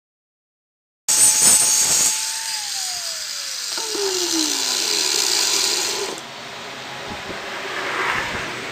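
Electric drill running with a loud hiss, its motor tone gliding steadily down in pitch between about two and five seconds in as it winds down. The sound starts abruptly after a second of silence and drops to a quieter hiss about six seconds in.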